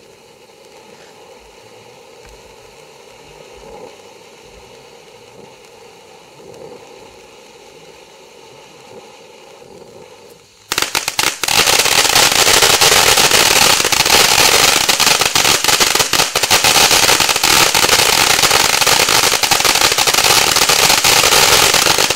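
A multi-tube fountain firework hissing faintly as it sprays sparks. About ten seconds in, it breaks into a loud, dense crackling of many rapid small pops that runs on until it stops abruptly near the end.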